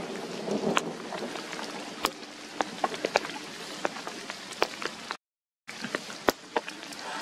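Dry fallen leaves rustling and crackling underfoot, with many irregular sharp ticks and snaps. The sound cuts out completely for about half a second just after five seconds in.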